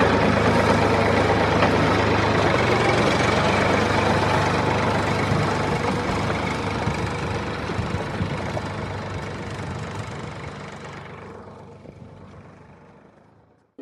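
Heavy diesel engine of an excavator or tractor running steadily with a low hum, slowly fading away over the last several seconds.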